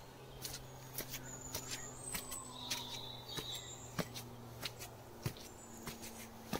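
Faint footsteps and sharp clicks at irregular spacing while walking up tiled steps and onto a tiled terrace, over a steady low hum, with a few short high chirps.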